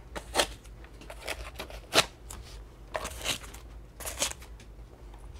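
Styrofoam inserts being pulled out of the battery slots of a DJI Matrice 600 drone frame: a series of short, irregularly spaced scrapes as the foam rubs free of the slots.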